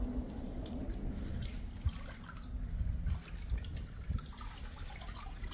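Water sloshing and dripping as a wet cast net is drawn up by hand out of the river, with small irregular splashes.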